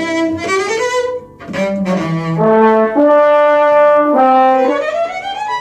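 A brass instrument playing a short phrase of held notes that step between pitches, ending with an upward glide near the end.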